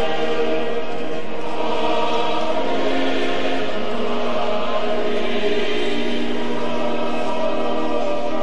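Choir singing a hymn with long held notes.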